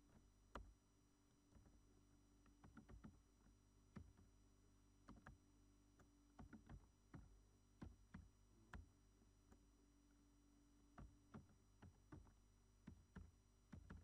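Faint computer keyboard keystrokes, short clicks in irregular bursts as a password is typed in, over a faint low hum.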